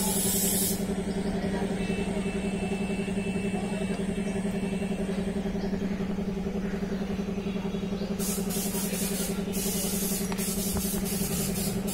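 A steady machine hum on one low pitch with a higher overtone, over street background noise; a thin high whine sounds for the first few seconds.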